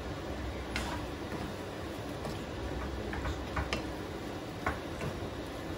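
Wooden spoon stirring shrimp in a nonstick skillet, making irregular light taps and clicks against the pan over a soft, steady hiss.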